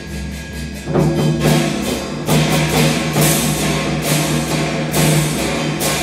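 Chinese traditional orchestra playing, with the percussion section coming in loudly about a second in: repeated strikes on drums and gongs, about two a second, over a sustained low note from the ensemble.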